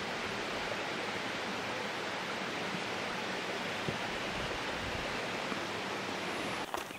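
Steady, even rushing noise of the outdoors with no distinct events in it, cutting off abruptly shortly before the end.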